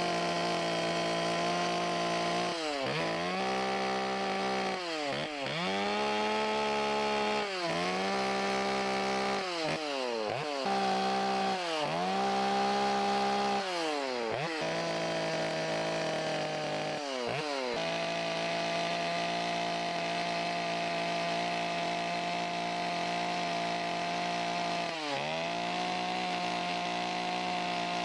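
Chainsaw running at high speed while carving wood. Its engine pitch dips and recovers repeatedly as the tip of the bar bites into the wood, mostly in the first two-thirds, then holds steady, with one more dip near the end.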